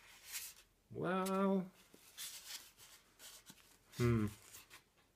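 A man's drawn-out wordless filler sound held on one pitch about a second in, and a shorter one about four seconds in, with faint rustling and rubbing of foam packing material between them as he works the motor into a foam nacelle.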